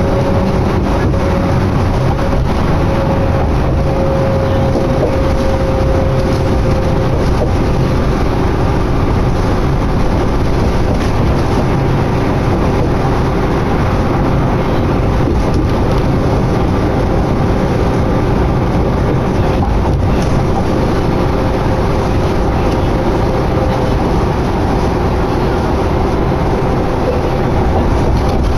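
Inside a 2011 New Flyer D60LFR articulated diesel bus under way: a steady, loud drone of engine and road noise, with a faint steady whine over it.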